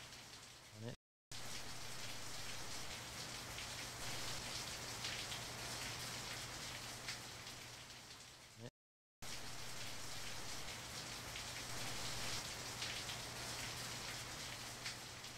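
Steady rain falling on wet asphalt and garden plants, with a faint low hum underneath. The sound cuts out completely and briefly twice, about a second in and about nine seconds in.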